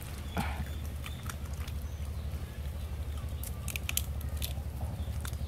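Small clicks and crackles of a cooked shrimp's shell being peeled by hand and bitten into, over a low steady rumble.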